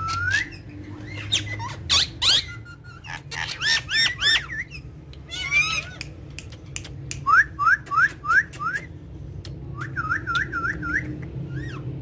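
Indian ringneck parakeets chirping and squawking in short, sharp calls. About seven seconds in there is a run of five quick rising chirps, and a string of arched chirps follows a few seconds later.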